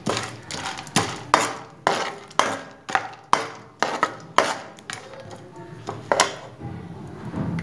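Steel spoon scraping and knocking against a steel karahi about twice a second while stirring gond katira frying in ghee. The strokes stop about six seconds in.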